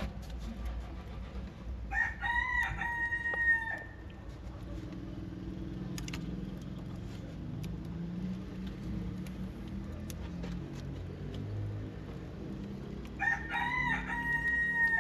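A rooster crowing twice, once a couple of seconds in and again near the end, each crow a held call of under two seconds.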